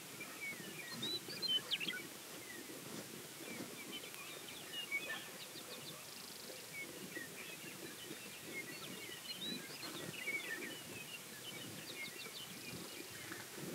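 Outdoor ambience of many small birds chirping and calling in short, varied notes over a low background rumble, with a brief burst of louder calls about a second and a half in.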